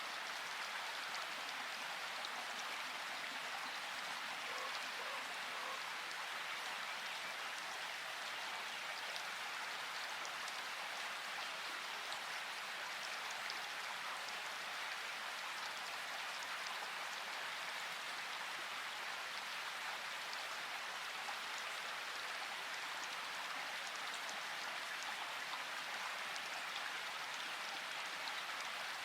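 Steady rain falling: an even hiss of many drops, with no thunder.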